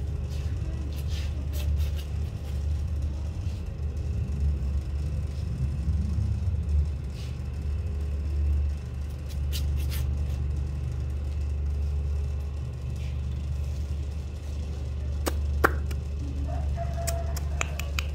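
A steady low rumble, with scattered sharp clicks of a rooster's beak pecking grain off a concrete floor, several close together near the end.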